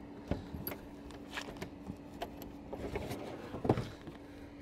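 Cookware and containers being handled and shifted about: a string of light clicks and knocks, the loudest near the end, over a steady low hum.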